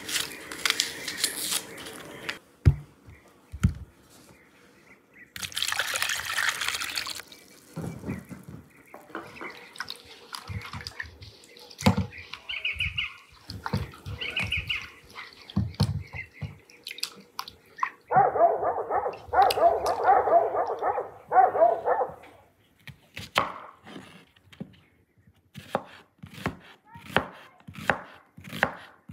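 Knife scraping as onions are peeled. Then water splashing in a wooden bowl as the peeled onions are washed by hand. Near the end, a kitchen knife slicing onion against a wooden cutting board in short, even strokes, about two a second.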